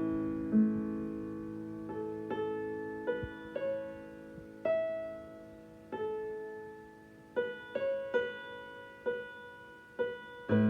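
Digital piano played in a slow improvisation: single notes and small chords struck one after another, each left to ring and fade.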